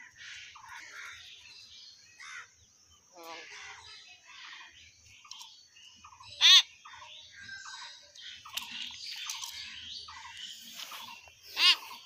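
Common hill myna vocalising: a run of short chattering, speech-like babbling notes, broken twice by a loud, shrill up-sweeping whistle, once about halfway through and again near the end.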